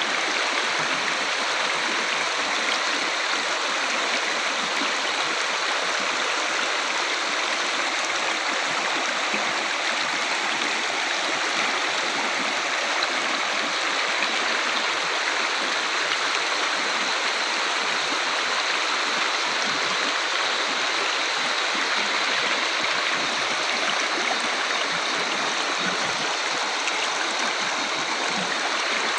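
Shallow rocky river rushing over and around boulders in a riffle: a steady, unbroken rush of water.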